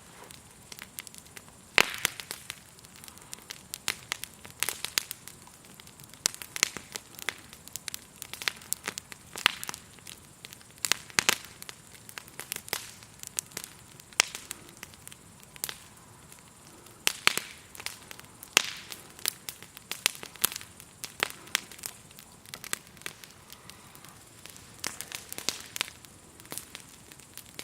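Campfire of burning wood logs crackling, with irregular sharp pops and snaps, some louder than others. A steady, faint, high-pitched chirring of grasshoppers runs underneath.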